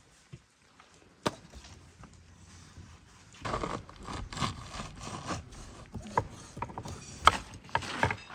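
A knife cutting through a watermelon on a wooden board: rasping, crunching strokes starting about three seconds in, with a couple of sharp knocks near the end.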